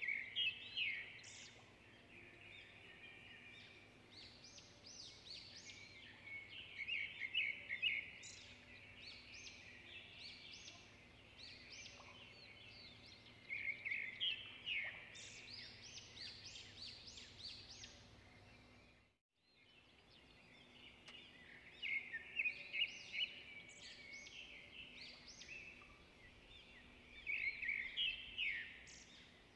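Small birds chirping in repeated bursts of quick high notes a few seconds apart, over a faint steady hum. The sound cuts out for a moment about two-thirds of the way through.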